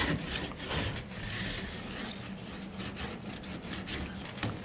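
Spline roller pressing a rubber spline into the groove of a window-screen frame over the mesh, a repeated rubbing, scraping noise as it is run along while the spline is pulled taut.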